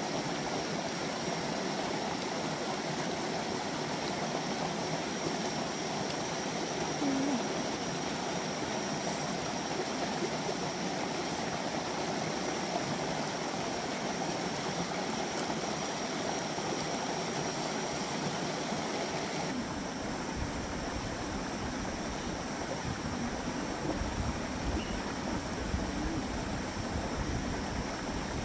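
Steady rushing of a shallow rocky creek flowing over stones. About two-thirds of the way through, a deeper low rumble joins it.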